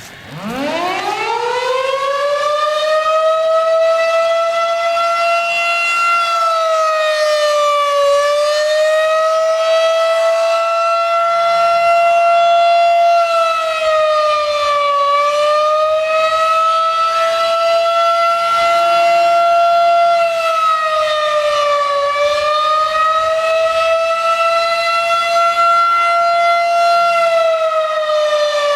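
Federal Signal 2001-SRN electromechanical outdoor warning siren winding up from a standstill, climbing steeply to full pitch within about two seconds, then running in fast wail for a routine test, with a shallow dip in pitch about every seven seconds. Very loud, at close range.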